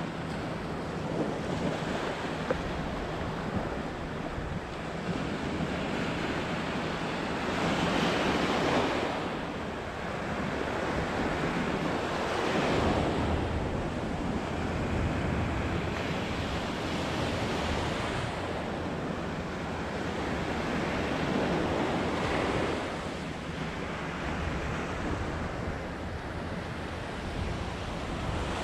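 Ocean surf breaking and washing up a sand beach, swelling louder every four to five seconds, with wind buffeting the microphone.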